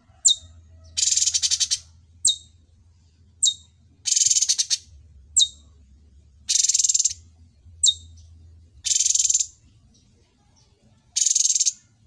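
Caged cucak cungkok singing: short, sharp, high notes that drop in pitch alternate with about five harsh, fast-rattling phrases of under a second each, repeated every second or two.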